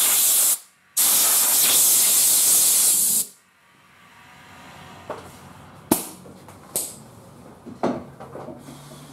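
Compressed-air blow gun blasting air to blow dirt off a transmission case: a steady loud hiss, broken by a short pause about half a second in, that cuts off a little past three seconds. A few sharp knocks follow.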